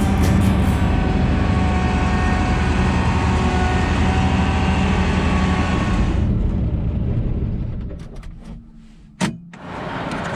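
Heavy farm machine's diesel engine running with a dense, rapid pulse, then dying away about six to eight seconds in. A single sharp click follows near the end.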